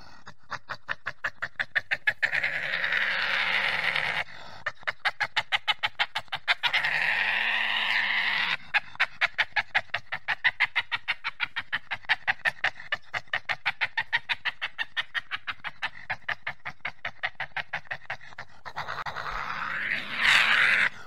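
Intro sound design: a fast, even run of sharp pulses under stretches of swelling whooshing noise, ending in a loud rising whoosh near the end.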